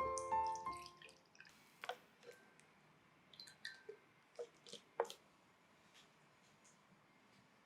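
Piano music ending about a second in, then scattered small clicks and light knocks of kitchen things being handled, the sharpest about five seconds in.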